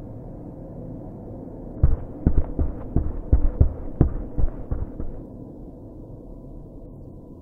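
About two seconds in, a run of roughly ten dull, low thumps comes in quick, uneven succession for about three seconds, over a steady low hum.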